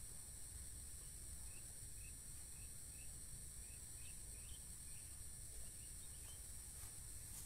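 Faint rural field ambience: a steady high-pitched insect drone, with short chirps repeating about twice a second that die away after four or five seconds, over a low wind rumble.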